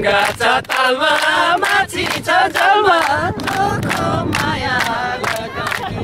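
A group of people singing a Nepali lok dohori folk song together with no instruments, clapping their hands in time at about three claps a second.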